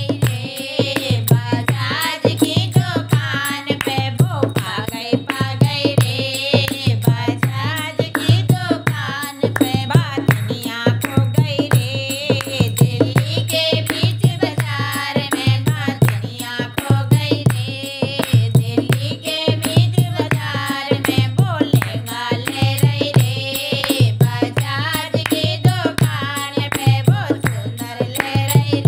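A bhat geet, a North Indian wedding folk song, sung over a steady drum beat and a low held tone.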